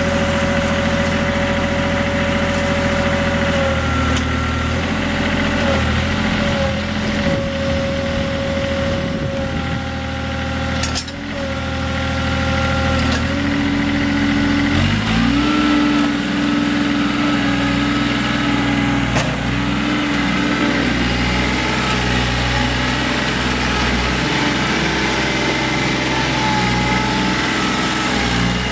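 Kubota B21 tractor-loader-backhoe's diesel engine running steadily at a low speed, then speeding up about halfway through and holding at a higher speed. Fainter tones above the engine shift up and down.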